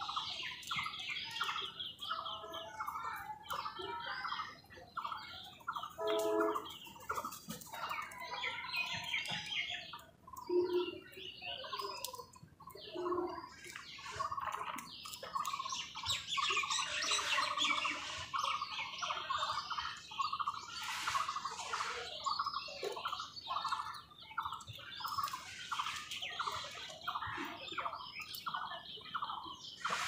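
A group of house crows calling over and over, harsh short calls in quick succession, mixed with higher chirping and trilling from other birds.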